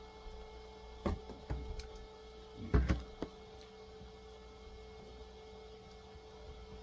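Handling a toy car's cardboard packaging: a few short taps and knocks, the loudest about three seconds in, over a steady hum.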